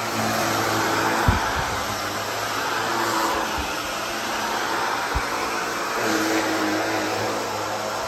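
Upright bagless vacuum cleaner running steadily on carpet, its level rising and falling slightly as it is pushed. Two brief thumps, about a second in and about five seconds in.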